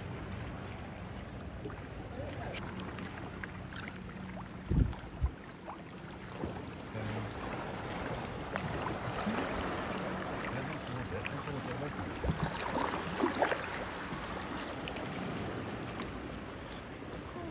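Sea water lapping and splashing around plastic sit-on-top kayaks, with wind on the microphone. Two brief low thumps come about five seconds in, and a few louder splashes around twelve to thirteen seconds.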